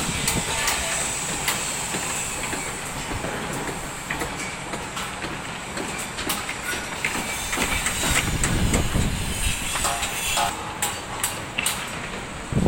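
Construction site noise: machinery running steadily, with a continuous high whine and many scattered metallic clanks and knocks.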